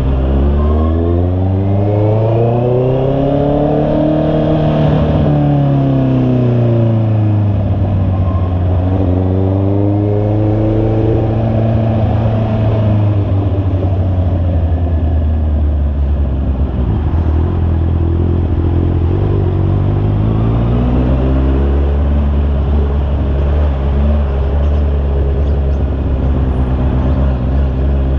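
Honda CB650R's inline-four engine under way: the revs climb and fall back twice in the first dozen seconds, hold steady for a while, then rise again about twenty seconds in.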